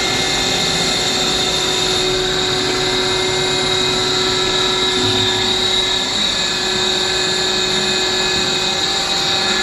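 Electric booster pump machinery running steadily: a constant motor hum with a fixed whine and an even hiss.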